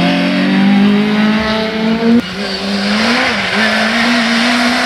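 Rally car engines: a Peugeot 208 rally car accelerating with slowly rising pitch, then an abrupt cut to a Ford Fiesta rally car's engine under power, its pitch rising and dipping briefly and then holding steady.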